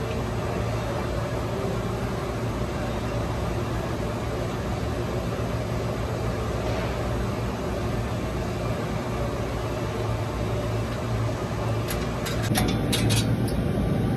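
Steady low mechanical hum of workshop background noise, with a few sharp clicks about twelve seconds in as parts in the forklift's engine bay are handled.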